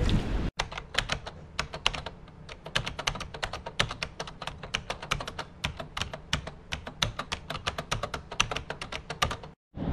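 Rapid, irregular sharp clicks or taps, several a second, over a low steady hum. They start suddenly about half a second in and cut off just before the end.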